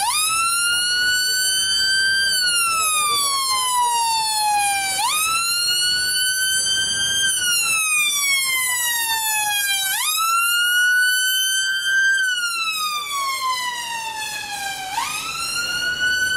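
Emergency ambulance siren sounding a slow wail. Each cycle jumps up in pitch, climbs a little, then falls slowly, repeating about every five seconds, three full times over.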